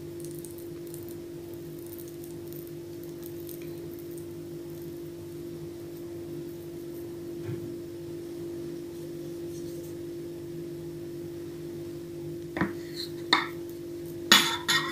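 A steady electrical-sounding hum over quiet kitchen room noise while hands work soft dough on a wooden tabletop. Near the end come a few sharp clicks and knocks on the table, the loudest a moment before the end.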